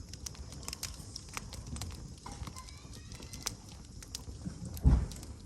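Wood fire crackling, with irregular sharp pops and snaps. A dull low thump about five seconds in.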